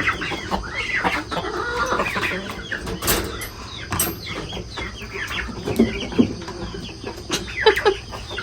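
A flock of chickens clucking, with two sharp knocks about three and four seconds in.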